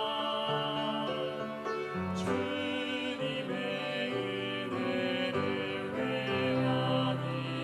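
Church choir singing a slow hymn in held chords, the voices wavering with vibrato.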